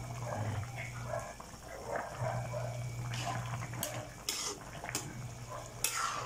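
Pot of vegetable stew simmering while a metal ladle stirs it, clinking sharply against the pot several times in the second half, the loudest clink near the end. A steady low hum runs underneath.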